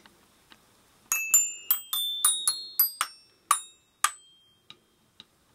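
Short jingle of about ten bright, quickly fading bell-like notes in a glockenspiel or mallet-percussion sound, starting about a second in and ending after about four seconds.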